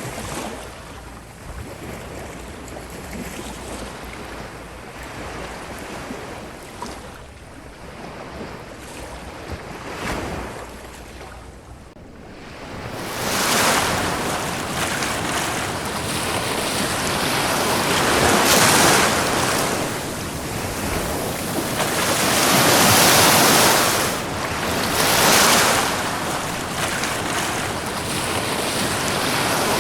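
Ocean waves breaking and washing up the shore. The surf is soft for the first dozen seconds, then grows much louder, with several waves swelling and receding in turn.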